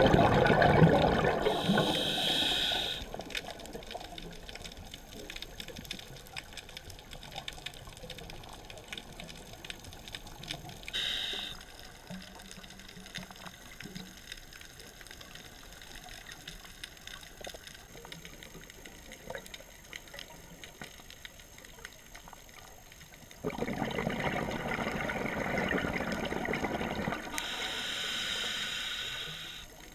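Underwater sound inside a camera housing: a scuba diver's exhaled bubbles gushing loudly past, at the start and again for several seconds near the end, with a short burst about eleven seconds in. Between the breaths there is a quieter underwater background with faint crackling.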